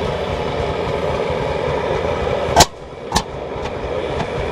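Vintage Landini hot-bulb (testa calda) tractor's single-cylinder engine being started by hand at the flywheel: it fires with two sharp exhaust bangs about half a second apart, a little over halfway through, followed by fainter ticks. Before the first bang a steady rushing noise fills the background and cuts off as the engine fires.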